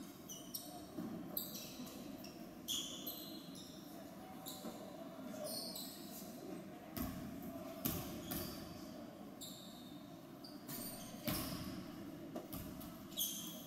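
Basketball court sounds in a large gym: sneakers squeaking in short bursts on the hardwood floor, a basketball bouncing with a few sharp thuds, over a steady hall murmur.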